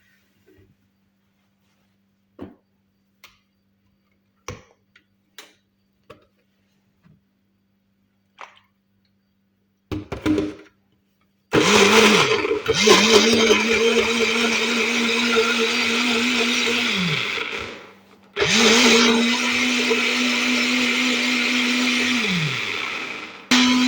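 Countertop blender puréeing fruit with water: a few light clicks and knocks, then the motor runs in loud, steady bursts. The first two bursts last several seconds each and wind down as it is switched off, and a third starts near the end.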